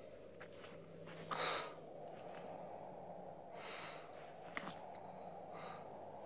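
A man sighing and breathing heavily: three breathy exhalations, the first, about a second in, the loudest, with a faint sharp click about halfway through, over a steady low hiss.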